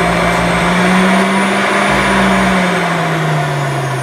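Electric centrifugal juicer motor running steadily, with fruit pressed down its chute being spun into juice. Its whine drops in pitch over the last second or so.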